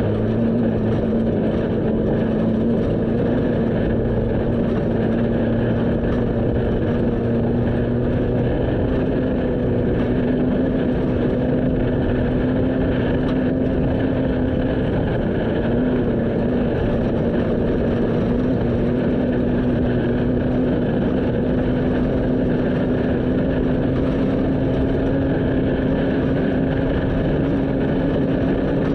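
Vehicle engine running at a steady speed, its pitch creeping slowly upward, over a constant rush of wind and road noise.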